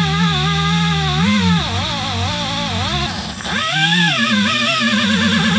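Pneumatic air drill running at speed as it drills out an aluminium rivet, its whine wavering in pitch as the bit loads and frees. A little over three seconds in it winds down briefly and spins back up.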